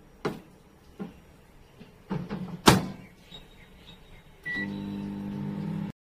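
Microwave oven being used: a few knocks and clicks as the door is handled, then a loud clunk as it shuts. A short keypad beep follows, and the oven starts running with a steady electrical hum that cuts off suddenly near the end.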